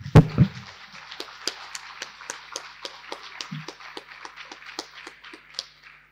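Audience applauding: a dense run of hand claps that dies away near the end, with a loud thump just at the start.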